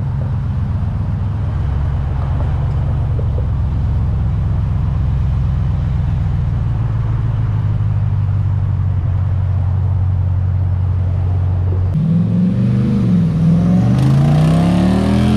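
Lifted Jeep Wrangler Rubicon's engine rumbling steadily at low speed as it rolls out. About twelve seconds in it revs up and takes off, its pitch rising and falling and getting louder near the end.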